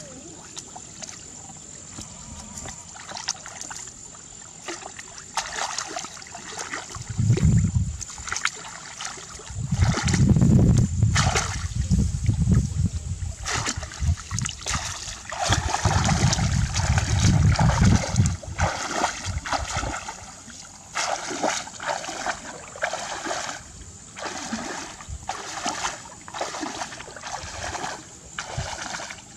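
Water splashing and sloshing in irregular bursts, with three louder stretches that carry a deep rumble, under a faint steady high whine.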